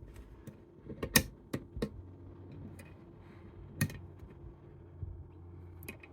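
Scattered small clicks and taps of picking tools working in a Brady Safekey lockout padlock, about half a dozen sharp clicks, the loudest a little over a second in and near four seconds in.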